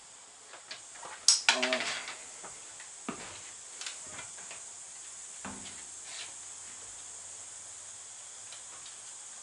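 Handling noise from a cordless drill and small hardware: a sharp click and a short rattling clatter about a second in, then a few lighter knocks over a steady hiss.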